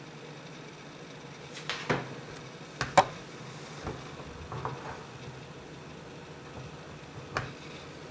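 An iPad being handled and turned on a tabletop: a few short knocks and clicks as its case meets the surface and fingers touch it, the loudest about three seconds in and a last one near the end, over a low steady hum.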